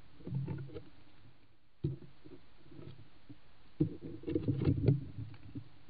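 A badger scuffling and knocking right against the trail camera. There is a brief flurry of scrapes near the start, a single sharp knock about two seconds in, then a louder, denser run of knocks and scuffs from about four seconds in as it noses up to the lens.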